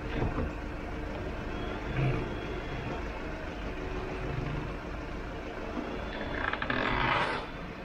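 A vehicle engine idling steadily with a low rumble, with a louder rushing noise for about a second near the end.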